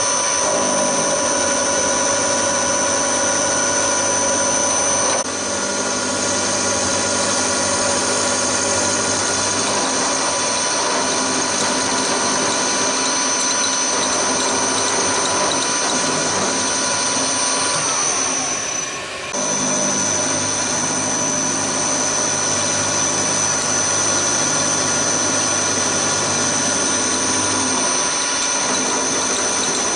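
Hafco HM 54GV milling machine running with its end mill cutting into an aluminium bracket: a steady machine whine with several high tones. About two-thirds of the way through, the whine sags and dips briefly, then picks up again.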